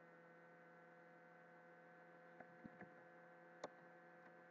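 Near silence: steady electrical hum, with four faint short clicks between about two and a half and three and a half seconds in.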